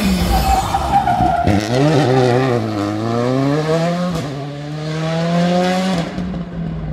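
Rally car engine taking a hairpin. Its pitch falls sharply about a second and a half in, then climbs steadily for about four seconds as the car accelerates out of the bend, and drops suddenly near the end.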